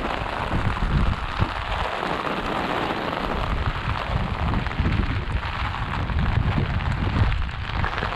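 Heavy rain pouring steadily, with gusts of wind buffeting the microphone as an uneven low rumble.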